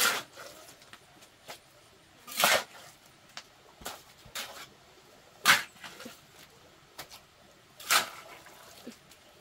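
Hand trowel scraping and smoothing wet cement on a floor: a series of separate rough strokes, the loudest about two and a half, five and a half and eight seconds in.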